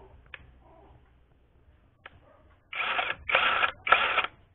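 Cordless brushless impact wrench run in free air with three short trigger pulls, its motor spinning up in brief bursts about half a second apart, after a couple of light clicks.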